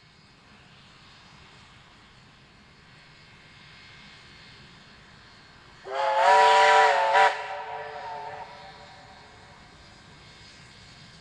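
Steam locomotive whistle: one loud blast of several tones sounding together, about 6 s in, cut by a brief break and a short extra toot, then fading away. Before and after it, only a faint steady background from the approaching train.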